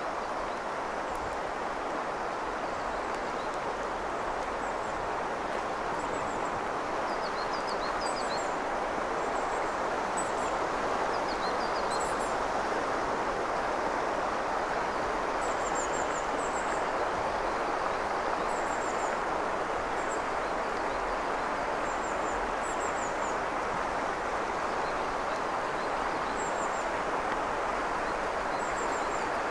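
Steady rush of a clear, shallow mountain river flowing over a stony bed, with faint high bird chirps now and then.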